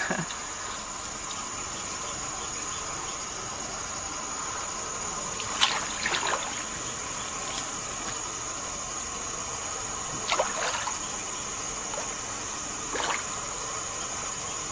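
A hooked carp splashing at the water surface a few times while being played on the line, over a steady high-pitched drone of insects.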